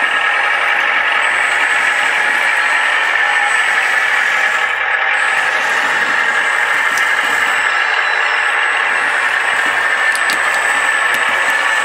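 A radio-controlled Lesu LR 636 track loader, a Liebherr replica, running steadily as it works its bucket in gravel. Its mechanical running noise is even throughout, with a thin high whine over it.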